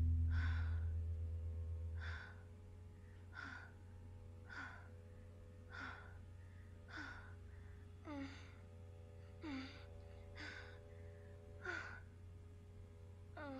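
A woman's rhythmic gasps and short moans, about one a second, faint and evenly spaced, from a sex scene playing on a laptop. A low music note fades out over the first two seconds.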